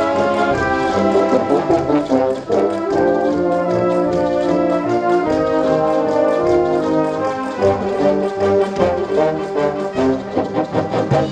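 Brass band playing, several brass instruments sounding held chords that shift from note to note.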